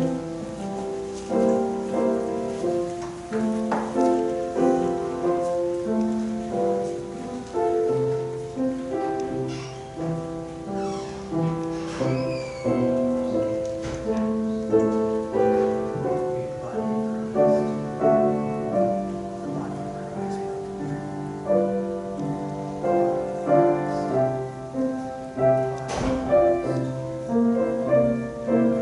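Slow, quiet piano music, held chords and a melody moving from note to note, with a few faint knocks.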